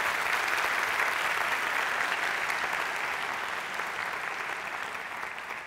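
Studio audience applauding, the clapping slowly fading toward the end.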